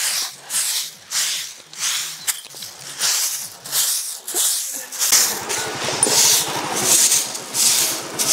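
Stiff grass broom sweeping a dusty dirt yard in quick scraping strokes, about two a second. From about five seconds in, a motor scooter's small engine runs underneath with a low, even pulse.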